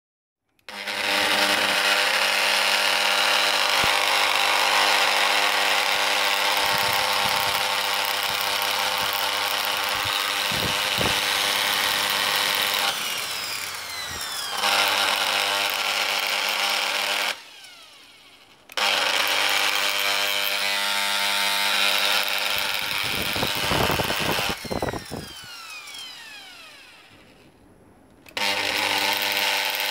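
Kenwood Chef mixer's bare brushed motor running at speed with a whirring buzz; it slows briefly once, then twice is switched off and winds down with a falling whine before starting up again.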